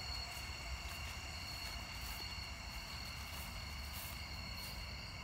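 Night insect chorus: several insects trilling steadily at different high pitches, over a low rumble.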